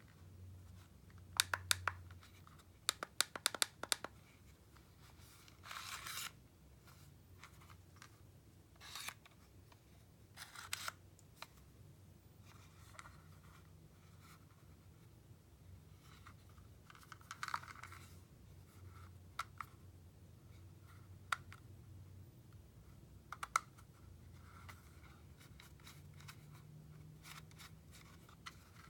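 Hands handling and turning over a small plastic CC308+ bug detector: scattered clicks and brief rubbing scrapes of fingers on the plastic casing, with a quick run of clicks a few seconds in.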